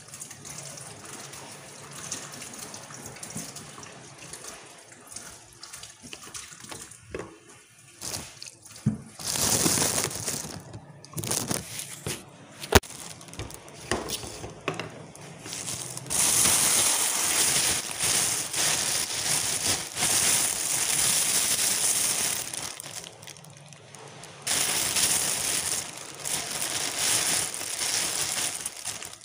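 Kitchen tap running while vegetables are washed under it, the splashing swelling and fading as they are moved in and out of the stream, loudest in long stretches in the second half. One sharp knock about halfway through.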